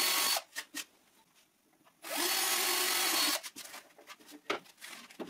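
Cordless drill boring guide holes into plywood: one run stops shortly after the start, then after a gap a second run of about a second and a half winds up in pitch at its start and runs steadily. A few light knocks follow near the end.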